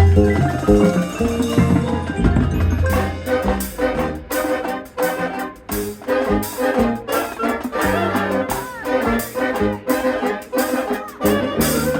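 Live ensemble music being rehearsed: sustained pitched notes with many sharp percussive strikes from about three seconds in.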